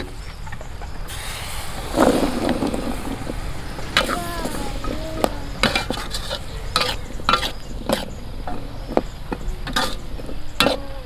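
Metal spatula scraping and knocking against an aluminium wok as jackfruit seeds are dry-roasted and stirred. A rush of the seeds being poured in comes about two seconds in, then a series of sharp scrapes and clanks.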